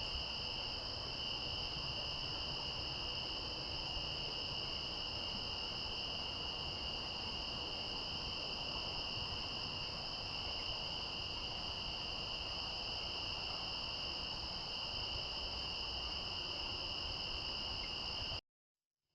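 Steady chorus of crickets, a continuous high trilling in two pitches, over faint outdoor background noise. It cuts off abruptly near the end.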